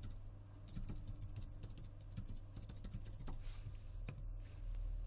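Typing on a computer keyboard: a run of irregular keystrokes over the first three seconds or so, then a few scattered clicks, with a faint low hum underneath.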